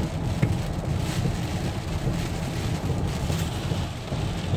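Hurricane wind and heavy rain battering a moving car, over a steady low rumble of the car on the road, with a few sharp taps.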